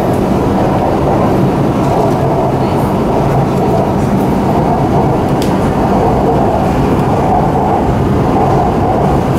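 Steady running noise of a Shanghai Metro Line 9 train at speed, heard from inside the car: an even low rumble of wheels on rail and motors.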